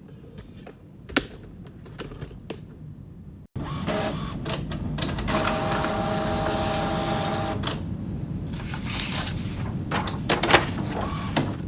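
A few sharp plastic clicks as the inkjet printer is closed up, then an Epson Expression Premium XP-7100 inkjet printer running: a steady mechanical whir with a held whine in the middle and a few clicks and clunks near the end.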